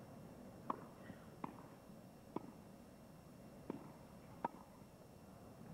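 Tennis ball struck back and forth in a rally on a grass court: five sharp, short pops roughly a second apart, over a faint hush from the crowd.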